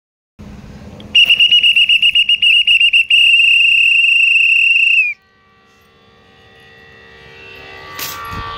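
Railway guard's pea whistle blown in one long, loud, high blast: trilling for about two seconds, then held steady before cutting off, the signal to the driver that the train may depart. After it a fainter hum of several steady tones slowly grows louder.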